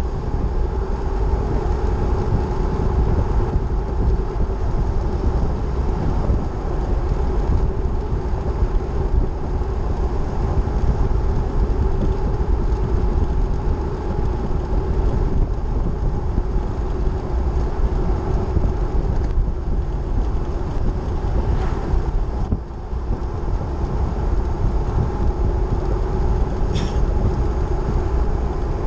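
Steady driving noise of a vehicle cruising on a paved highway: low road rumble with a constant hum, and a brief high chirp near the end.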